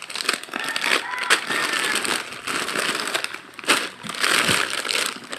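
Packaging crinkling and rustling as items are handled and pulled out of a gift box, with irregular crackles.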